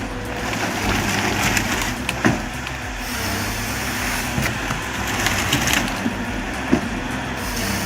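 A heavy diesel machine running steadily while wood cracks and splinters, with scattered sharp snaps over the engine hum.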